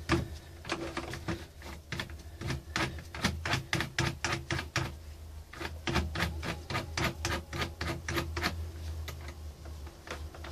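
Irregular run of light clicks and knocks, several a second, as gloved hands handle and fit wooden and metal parts around a hand drill clamped in a homemade wooden lathe frame, the drill itself not running. A low steady hum lies underneath.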